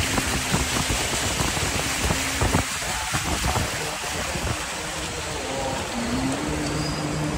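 Heavy rain falling, a steady hiss, with a faint low hum underneath.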